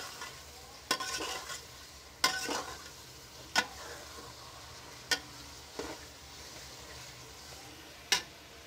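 Beef pieces frying in oil in an aluminium pressure cooker, stirred with a slotted steel spoon: about five sharp clinks of the spoon against the pot and some scraping, over a soft steady sizzle.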